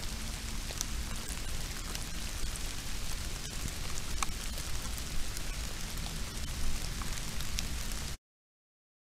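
Steady hiss from a trail camera's microphone over a low electrical hum, with scattered faint ticks; it cuts off abruptly about eight seconds in.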